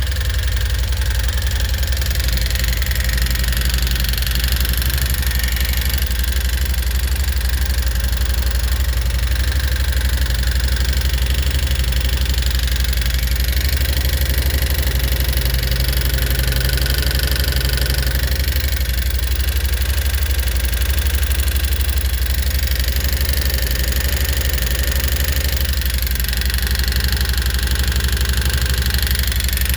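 2018 Yamaha Wolverine X4's parallel-twin engine running steadily at idle with a repeating tick, a new noise since the engine was rebuilt after losing its oil.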